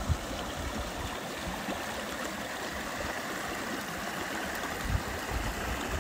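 Small mountain creek rushing and splashing over rocks, a steady even rush of water, with a few low bumps underneath.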